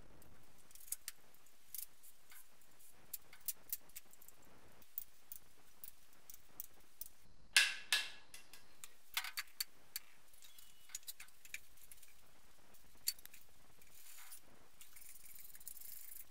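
Scattered light metal clicks and clinks of hand tools and parts as a clutch and flywheel are fitted to a BMW M20 six-cylinder engine, with two louder clinks that ring briefly about halfway through.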